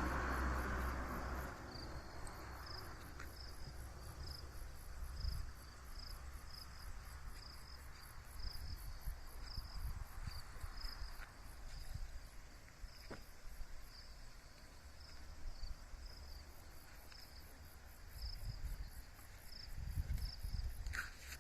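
Insects chirping: one repeats a short chirp about twice a second while a higher-pitched one pulses quickly and steadily. A passing vehicle's noise dies away in the first second or so, and a low rumble comes and goes underneath.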